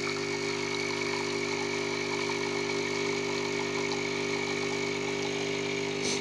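De'Longhi Magnifica bean-to-cup espresso machine humming steadily while coffee streams from its twin spout into a mug.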